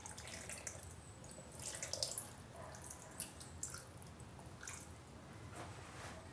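Faint trickling and dripping of soy sauce poured from a small cup over raw pork chops in a stainless steel bowl.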